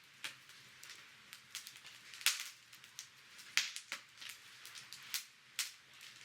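Wood fire crackling, with irregular sharp pops over a soft hiss; the loudest pops come a little over two seconds in and again near the middle.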